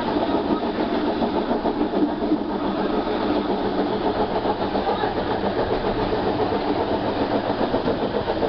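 Passenger train rolling along the track, a steady continuous rumble of wheels on rails.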